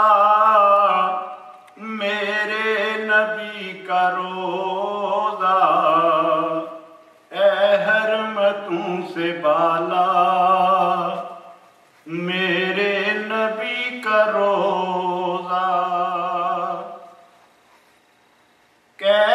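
A man's solo voice reciting a naat, a devotional poem in praise of the Prophet, chanted unaccompanied in long, wavering melodic phrases. There are about four phrases with short breaks between them, and a pause near the end.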